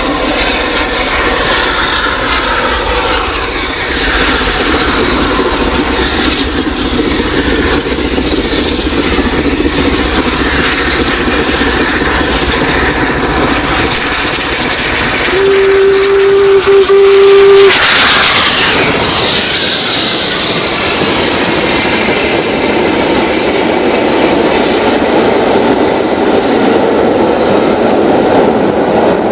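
Three-cylinder LMS Royal Scot steam locomotive 46115 Scots Guardsman working a train, its exhaust mixed with the loud hiss of a steam leak on the fireman's side. About halfway through it sounds its whistle, one steady note for about two seconds; the hiss then falls sharply in pitch as the engine passes, and the coaches roll by.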